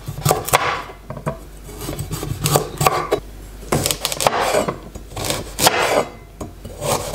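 Chef's knife cutting raw parsnips into chunks on a wooden cutting board: irregular knocks of the blade going through the root and striking the board.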